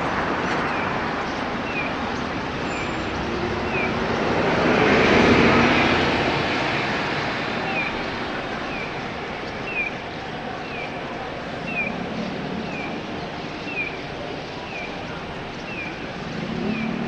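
Road traffic running steadily, with one vehicle passing close about five seconds in, and a short high chirp repeating evenly about once a second throughout.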